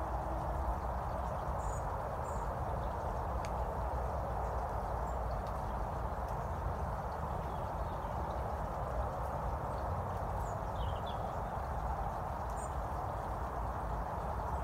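Steady outdoor ambience: a constant rushing noise with a low rumble underneath, and a few faint, short, high chirps from small birds.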